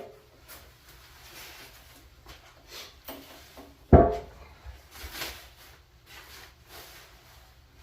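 Packaging and lathe parts being handled, with scattered scrapes and rustles and one sharp knock about four seconds in that rings briefly.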